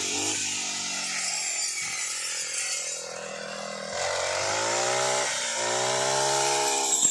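Brush cutter's small engine running, easing off briefly in the middle, then revving up again about four seconds in and holding at the higher speed.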